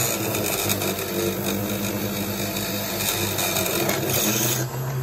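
Small bench drill press running, its 3 mm bit cutting a hole through a metal model-truck chassis rail. A steady motor hum that dips slightly while the bit cuts and picks up again near the end.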